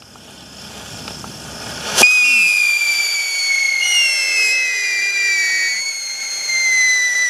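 Whistling spark-fountain firework: a fizzing hiss builds for about two seconds as the fuse burns, then a loud high whistle starts abruptly and holds, sliding slowly lower in pitch, with a second whistle tone joining it.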